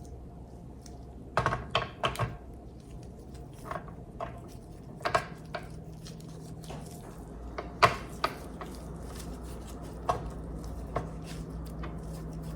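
Scattered light clicks and clinks of metal parts being handled as grease is worked into the gears of a KitchenAid stand mixer: a quick cluster about a second and a half in, then single taps every few seconds.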